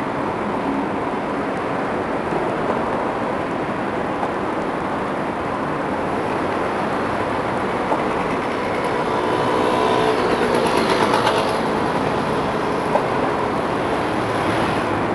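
Steady city street traffic noise, with a vehicle passing louder about nine to twelve seconds in, its engine note rising and then fading.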